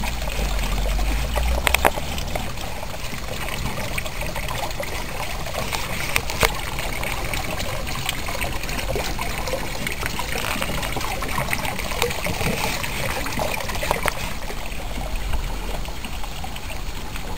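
Water trickling steadily from a decorative garden-pond water mill into the pond.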